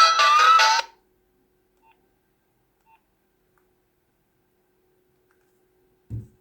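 Mobile phone ringtone, an electronic melody of quick notes, cutting off suddenly just under a second in. Two faint short beeps follow a second apart, then a brief low thump near the end.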